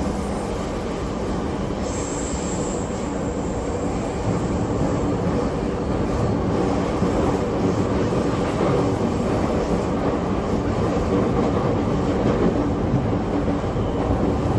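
Running noise heard inside a JR East E231 series commuter train in motion: a steady rumble of wheels on the rails with a layered motor hum, growing a little louder about four seconds in.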